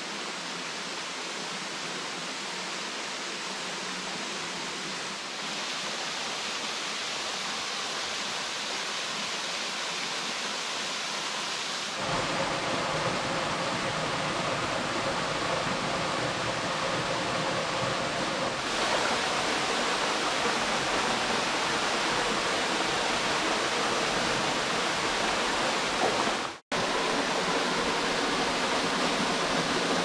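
Waterfall rushing steadily, a constant wash of falling water that shifts in level and tone a few times, with a momentary dropout a few seconds before the end.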